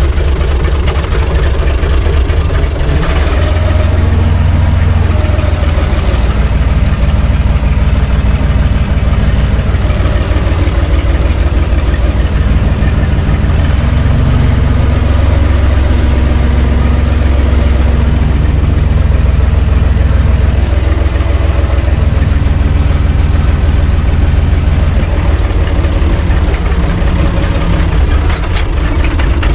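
UTB U445 tractor's diesel engine running steadily, heard from inside the cab, with a deep low rumble.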